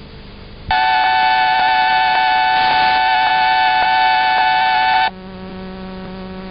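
A loud, steady electronic alert tone, a high buzzy note, sounds for about four seconds. It then cuts abruptly to a quieter, lower buzzing tone.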